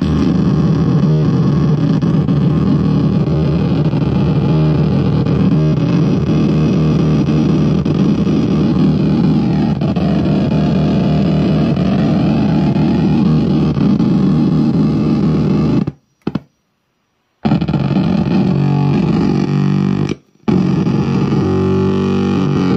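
Akai Rhythm Wolf drum machine pattern run through a Time Box Glitch effects pedal: a dense, heavily distorted, repeating loop whose tone sweeps as the pedal's knobs are turned. About two-thirds through it cuts out to silence for about a second and a half, then cuts out again briefly.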